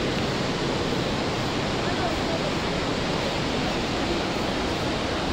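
Steady, even rush of river water flowing through the rocky gorge.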